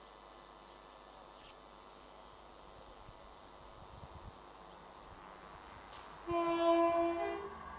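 Warning horn of an approaching Class 170 Turbostar diesel unit: one loud horn blast of about a second near the end, the usual warning for the foot crossing. Before it only faint outdoor background.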